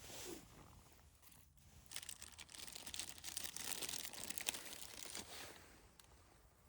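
Crinkling, crunching noise that starts about two seconds in and fades out after about five seconds.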